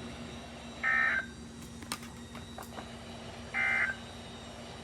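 Two short bursts of Emergency Alert System SAME digital data tones, each under half a second and nearly three seconds apart: the end-of-message signal closing an alert broadcast. A steady low hum and hiss run underneath.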